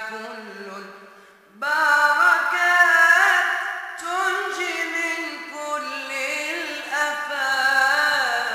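Moroccan madih, religious chant in praise of the Prophet, sung by a vocal ensemble. The singing fades, then about a second and a half in the voices come back in loudly together, holding long wavering lines.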